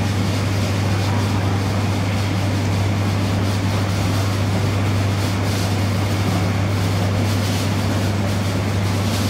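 A boat engine's steady low drone with a constant deep hum, over an even hiss of water and wind.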